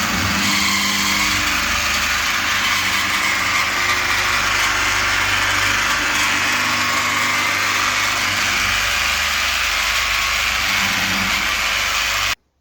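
Electric car polishing machine running steadily while buffing paint on the car's roof, a loud continuous whirring hum that cuts off suddenly near the end.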